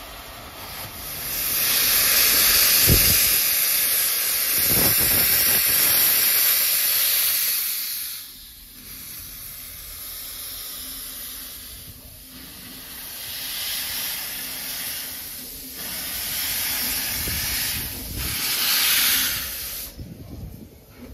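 Steam locomotive Lilly Belle, a Baldwin-built 2-6-0, blowing off steam from its open cylinder cocks as it starts away from the station. The hissing comes in surges: the longest and loudest runs from about one to eight seconds in, then weaker swells build to a last loud blast near the end.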